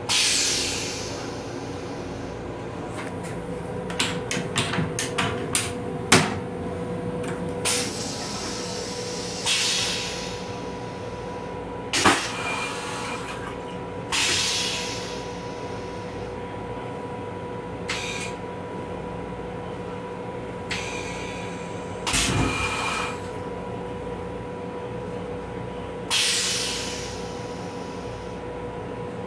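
The stainless-steel toilet in a Metro-North M7 rail car flushing: a sudden rush as the drain valve opens, fading over about a second. After it come scattered clicks, a few clunks and several short hisses over the railcar's steady hum.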